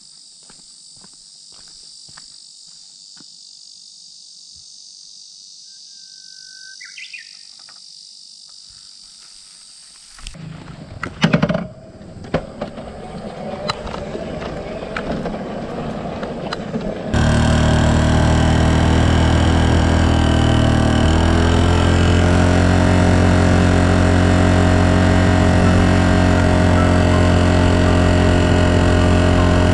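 Insects buzzing with footsteps and a short bird call, then a few loud knocks about eleven seconds in. From just past halfway, the Yamaha Serow 250's single-cylinder engine runs steadily and loudly as the bike is ridden, its pitch shifting a few seconds later.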